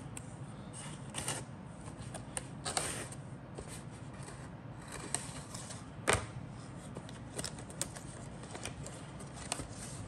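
Cardboard kit box being handled and its tape slit with a craft knife: short scrapes, rustles and taps, with one sharper knock about six seconds in.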